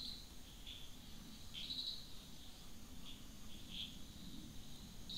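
Faint high chirps from a small animal, repeating irregularly every half second to a second over a faint low hum.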